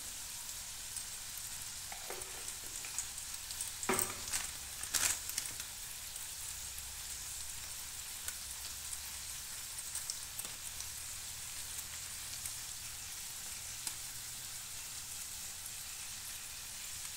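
Potato wedges and green chillies frying in mustard oil in an aluminium kadai: a steady, even sizzle, with a few sharp clicks about four to five seconds in.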